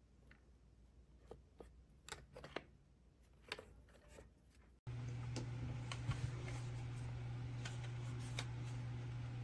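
Scattered light clicks and taps of small objects being handled. About halfway through the sound cuts abruptly to a steady low hum, with a few more light clicks over it.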